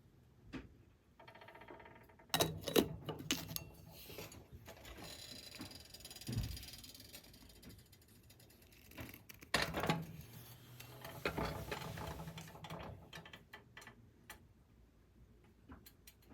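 Faint, irregular small clicks and knocks of objects being handled, coming in several short clusters with quiet gaps between them.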